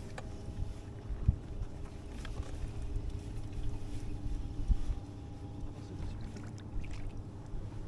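Open-water boat ambience: a low rumble of wind and water around a small fishing boat, with a faint steady hum. Two soft knocks come through, about a second in and again near the middle.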